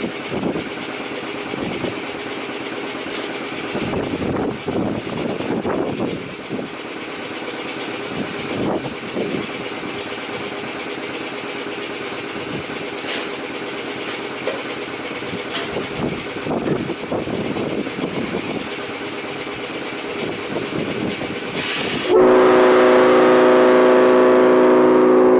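A steady rushing, hissing noise for about twenty seconds. Then, near the end, a Leslie S5 five-chime locomotive horn, blown by compressed air from a shop compressor, suddenly sounds a loud, sustained chord of several tones.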